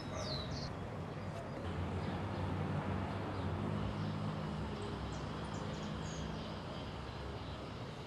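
Quiet outdoor ambience: a low steady hum under a few short bird chirps, a cluster right at the start and a few more about five seconds in.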